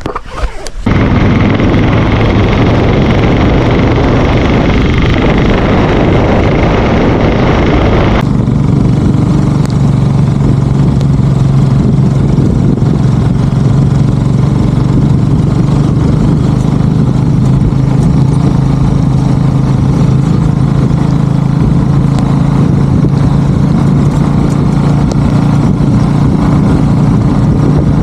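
Sidecar motorcycle under way, its engine running under a loud rush of wind and road noise. About eight seconds in the sound changes suddenly to a steadier, deeper engine drone.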